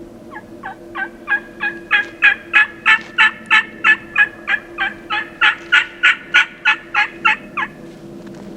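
Turkey yelping: a long series of about two dozen yelps at roughly three a second, each note breaking downward in pitch. The series builds in loudness and stops shortly before the end.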